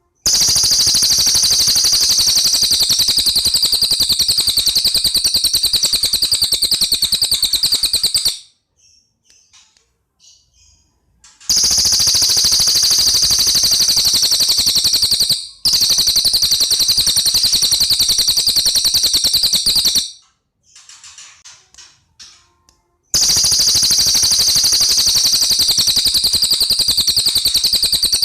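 Songbird giving a rapid-fire trill ('tembakan rapat'): very fast, evenly repeated high notes in four long runs, broken by short pauses with a few soft chirps.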